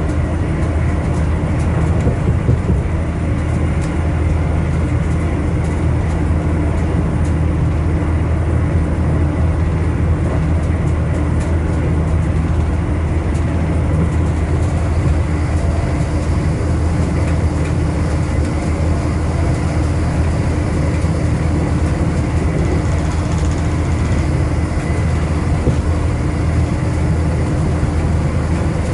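Inside a passenger coach of an Intercity Express Train running at speed: a steady low rumble of wheels and running gear, with faint light clicks during the first half.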